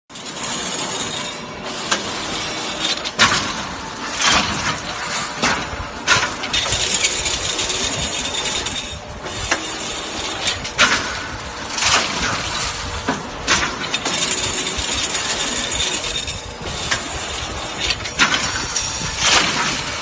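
Automatic crimped wire mesh weaving machine running: a continuous metallic clatter with sharp, irregularly spaced strikes over a steady mechanical noise.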